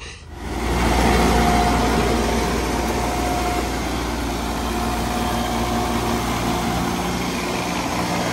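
Irrigation well's power-unit engine running steadily, freshly started after sitting through the winter.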